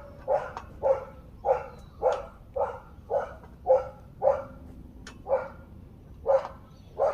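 A dog barking over and over, about two short barks a second, with a brief pause about four seconds in before it carries on.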